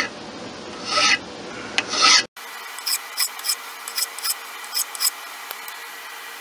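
Half-round file rasping over peened brass pin ends in a wooden test piece: about three slow strokes, then after a sudden break about seven shorter, quicker strokes.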